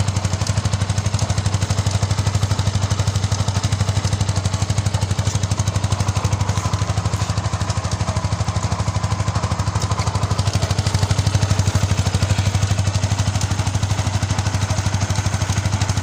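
Yamaha R15 V2 motorcycle's single-cylinder four-stroke engine running steadily, with a fast, even firing beat.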